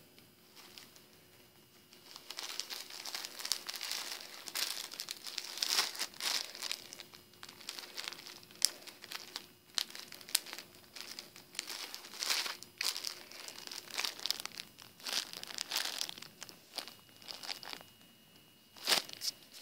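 Clear plastic Ziploc bag crinkling irregularly as a phone sealed inside it is handled and pressed. It starts about two seconds in and stops near the end.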